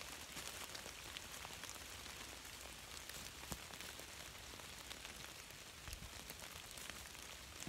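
Rain falling on wet leaf litter and trees: an even hiss with scattered drop ticks.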